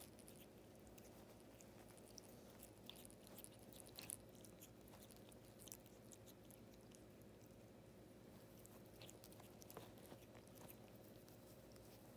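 Cat chewing and biting a catnip toy with a dry straw fringe: faint, irregular crunching and crackling of the fibres, a few louder crackles about four seconds in and near ten seconds, over a low steady hum.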